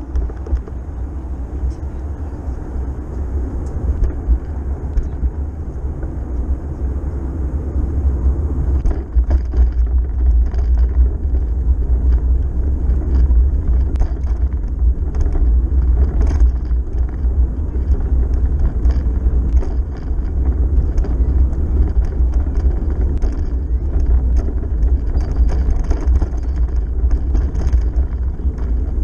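Low rumble of wind and road vibration on a bicycle-mounted camera's microphone while riding on pavement, with scattered small clicks and rattles. It grows louder about nine seconds in as the bike picks up speed.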